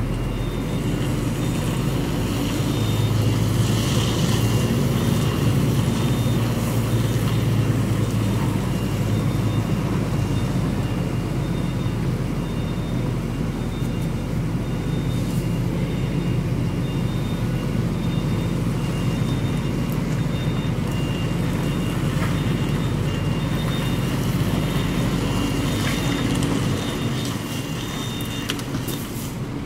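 Heavy truck's diesel engine running steadily as the truck drives slowly across the yard, a little louder a few seconds in and easing near the end. A faint electronic beep repeats at an even pace through most of it.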